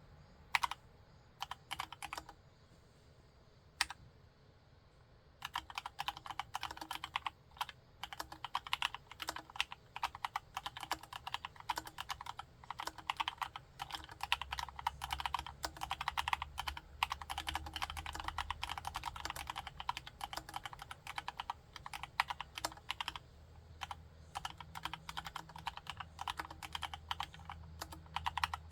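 Gateron Brown tactile switches in a Cox CA106 CNC aluminium Alice-layout keyboard being typed on: a few single keystrokes, then fast continuous typing from about five seconds in.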